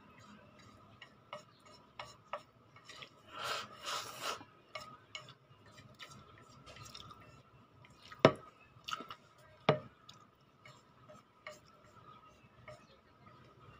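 Chopsticks clicking, tapping and scraping against a plate while picking up the last noodles, with scattered light clicks and two sharp knocks about eight and nine and a half seconds in.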